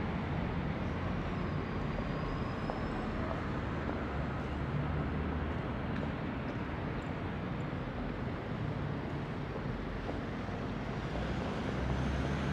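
Steady outdoor city ambience: a low traffic rumble under an even hiss.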